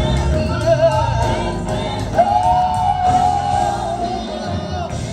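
Gospel singing with instrumental backing; the singer holds one long note a little after two seconds in.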